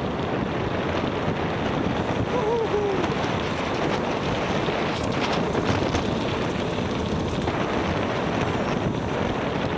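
Steady rush of wind on the microphone of a bicycle riding at speed, with a brief wavering tone about two and a half seconds in.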